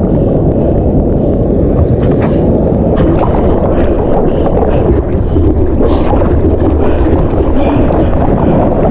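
Steady, loud rumble of wind and moving water on a low-set action camera's microphone, with ocean water sloshing and splashing against the camera and surfboard.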